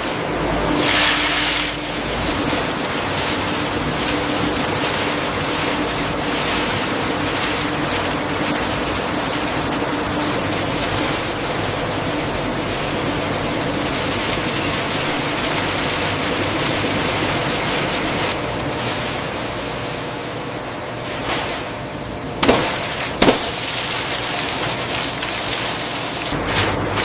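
Steady hissing rush of food-processing machinery running on a production line, with a faint steady hum. Two sharp knocks come about three-quarters of the way through, and a quick run of clicks near the end.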